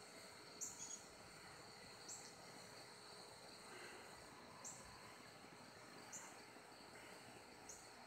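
Faint, short high-pitched chirps from a small animal, repeating about every second and a half over near silence.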